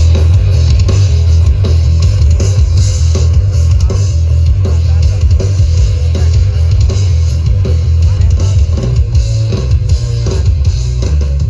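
Rock-style music with guitar and drums played at high volume through a large parade sound system. The very heavy bass dominates, with regular drum hits over it.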